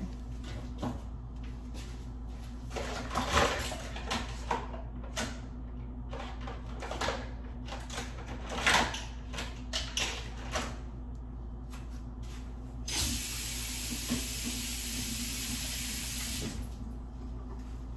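Scattered light clicks and knocks of kitchen things being handled, then a kitchen tap running steadily for about four seconds, stopping suddenly near the end.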